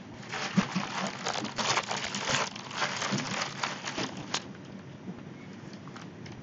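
Rustling, crackling handling noise on a phone microphone as the phone and clothing are moved against it, lasting about four seconds and stopping fairly abruptly.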